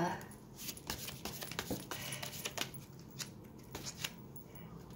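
A deck of tarot cards being shuffled by hand: irregular quick clicks and light rustling of cards sliding against each other.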